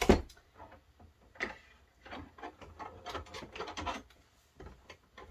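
A sharp wooden knock, then wood scraping and rubbing with small clicks as a wooden support board is worked into place under a shelf.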